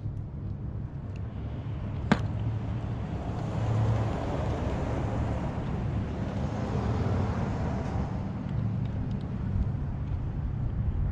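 A vehicle going by, its rushing noise swelling for several seconds and then fading, over a steady low hum. A single sharp click about two seconds in.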